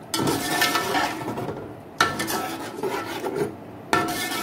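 Slotted metal spoon stirring thick curry masala in a metal pot, knocking and scraping along the pot's sides and bottom: three strokes about two seconds apart, each fading into a rubbing scrape. The masala is being fried down (bhunai) for a fish salan.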